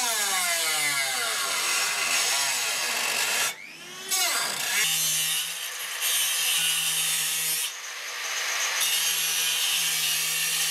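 A small hand-held grinder whining on sheet steel, its pitch sinking as it bears in, then after a short break an angle grinder grinding a steel patch panel clamped in a vise: a steady harsh grinding that dips briefly now and then.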